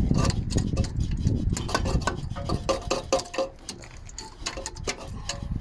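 Metal clinking and knocking from a Peugeot 308's exhaust pipe and its clamp bracket being twisted and worked loose by hand, some knocks ringing briefly.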